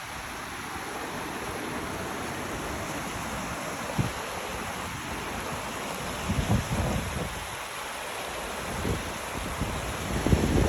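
Valley stream running steadily, with wind buffeting the microphone in low gusts about six seconds in and again near the end.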